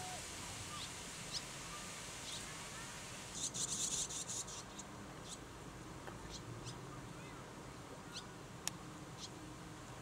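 Barn swallow fledglings calling: scattered short, high chirps, with a rapid rasping run of calls about three and a half seconds in, typical of chicks begging to be fed.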